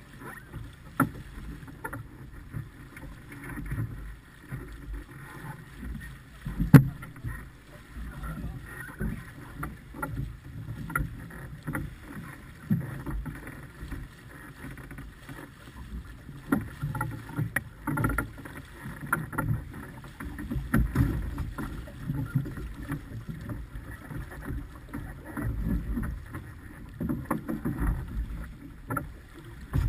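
Water rushing and splashing along the hull of a heeled sailboat under way, with a gusty low rumble and scattered knocks; one sharp knock about seven seconds in.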